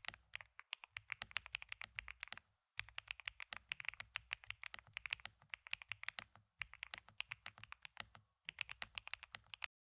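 Fast typing on a Xinmeng M87 Pro mechanical keyboard fitted with Z1 switches: quick runs of key clicks broken by a few short pauses, stopping abruptly just before the end.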